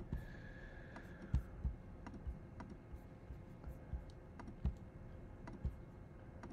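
Irregular clicks and soft taps of a computer's mouse and keyboard being worked at a desk, about a dozen over the few seconds. A faint high tone fades out in the first second or so.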